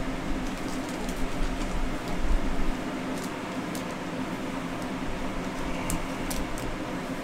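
Steady mechanical hum of room noise, like a fan running, with a few faint short clicks in the second half.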